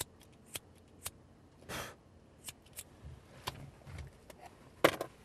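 Scattered small sharp clicks and handling noises inside a car, with a short breathy rush a little under two seconds in and a louder click near the end.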